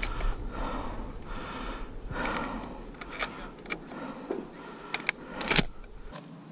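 Close handling noise: breathy rustling over a low rumble, then a few sharp clicks, the loudest a clack about five and a half seconds in.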